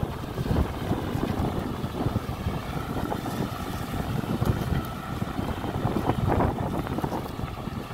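John Deere tractor's diesel engine running steadily under load as it pulls a mounted plough through the soil, with wind buffeting the microphone.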